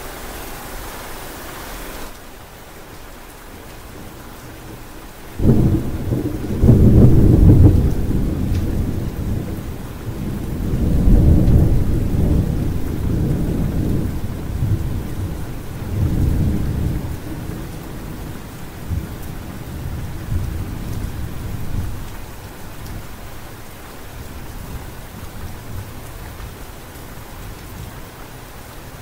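Thunderclap breaking suddenly about five seconds in, then rolling low rumbles that swell twice and die away over some fifteen seconds, over steady rain hiss. The rain is louder at first and softens about two seconds in.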